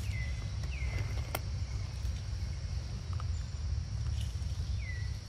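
Outdoor ambience: a steady low rumble under a steady high drone like insects. Three short chirping calls each drop in pitch and then hold level, two near the start and one near the end, with a single sharp click about a second and a half in.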